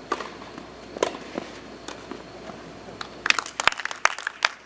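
Tennis ball struck by rackets in a rally, a few sharp single hits about half a second to a second apart. From about three seconds in, a quick run of sharp claps from spectators as the point ends.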